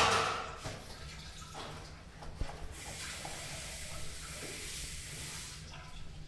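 Public restroom sounds over a steady low hum: a sharp bang right at the start that fades over about a second, then a sink faucet running with a hiss for about three seconds before it shuts off.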